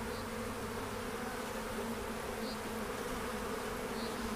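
Honeybees buzzing around an open hive during a frame inspection, a steady, even hum.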